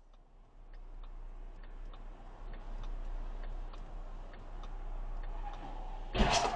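Steady, regular ticking of a car's turn-signal indicator over a low steady hum heard from inside the car, then a sudden loud burst of noise near the end.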